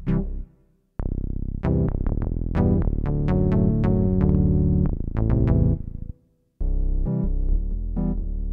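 Yamaha PSR-E403 home keyboard playing short phrases on its preset voices, with bass notes under the melody. The sound breaks off about half a second in and again near six seconds, and a new phrase starts after each break.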